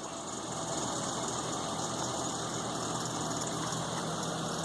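Volvo XC90 T6's twin-turbo straight-six engine idling steadily.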